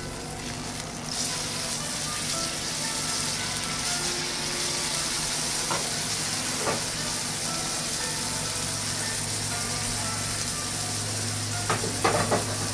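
Wagyu oyster blade steak sizzling on a hot teppanyaki griddle, the sizzle picking up about a second in after the steak is turned with a spatula. A few sharp clicks come near the end.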